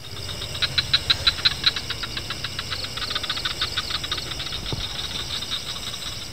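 Rapid, steady mechanical clicking, about six clicks a second, over a low hum and faint hiss, cutting off abruptly at the end.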